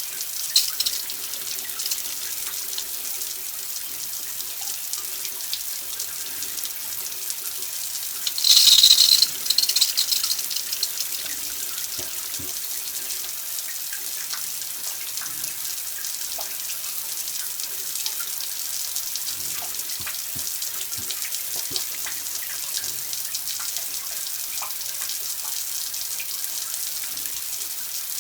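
Water running and splashing steadily, with a louder surge of splashing for about two seconds around nine seconds in.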